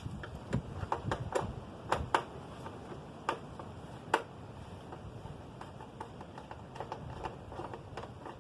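Irregular sharp clicks and light knocks of hands and parts being worked while pulling a blinker off a motorcycle, the loudest spread over the first four seconds and fainter ones after.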